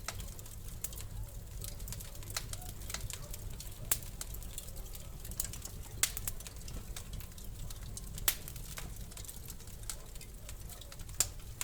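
Wood fire crackling in a fireplace: irregular sharp pops and snaps over a low steady rumble, with louder pops about 4, 6, 8 and 11 seconds in.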